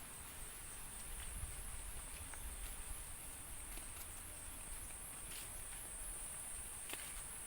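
A steady, high-pitched insect chorus that pulses a few times a second, with a few faint clicks mixed in.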